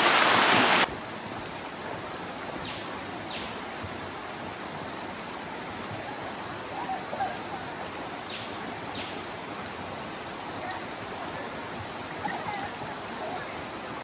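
Flood-swollen creek rushing over rocks: a steady, even rush of water, much louder for the first second before dropping to a softer rush. A few faint, short, high chirps come in pairs.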